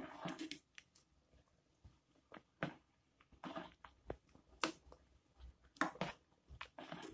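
Metal ladle stirring basmati rice boiling in a metal pot, giving scattered irregular clinks and scrapes against the pot over the faint sound of the boil.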